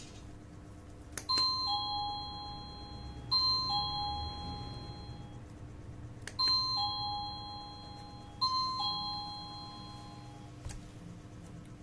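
Wireless doorbell receiver (TaffHOME A10) playing an electronic ding-dong chime: a higher note followed by a lower one, struck twice in a row, each note ringing on for about two seconds. The tune plays twice, about five seconds apart.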